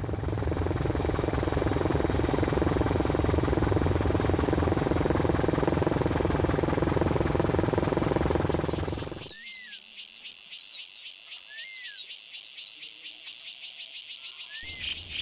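Forest nature sounds: a steady rushing, fluttering noise for about nine seconds that cuts off abruptly. Then a rapid, regular, high-pitched pulsing of calling insects remains, with short chirping calls rising and falling over it every second or two.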